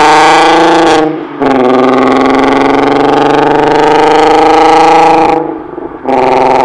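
Lowered VW Golf Mk5 accelerating hard away at full throttle, its engine note climbing steadily. Two quick upshifts break it: a brief dip about a second in and a longer one near the end, each followed by the engine pulling again from lower revs.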